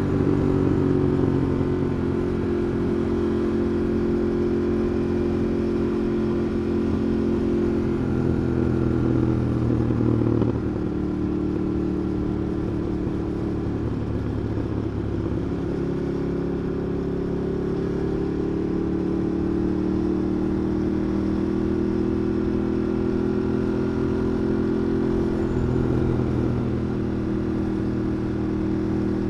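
Ducati Monster 821's 821 cc V-twin engine running under light throttle, revs rising and falling gently, heard from a recorder in the rider's backpack. About ten seconds in the engine note drops in level and pitch as the throttle eases, then settles back to a steady, slowly rising cruise.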